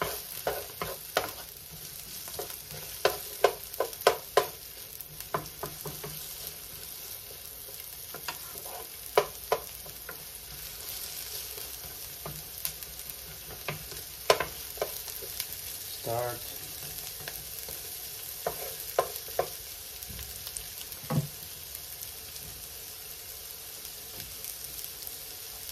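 Diced onions and garlic sizzling in olive oil in a nonstick frying pan, a steady hiss as the pan heats up. Short clicks and taps from a wooden spoon stirring them against the pan come often in the first ten seconds or so, then more sparsely.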